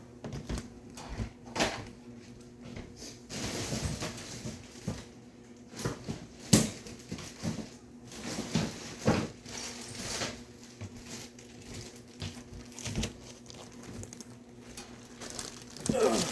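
Hands rummaging through tools and small metal parts: irregular clicks, knocks and rattles, with a steady low hum underneath.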